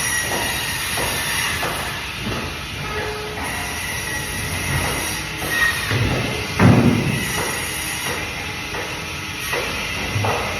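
Bandsaw running while cutting fish, a steady whine with intermittent knocks and one heavier thump about six and a half seconds in.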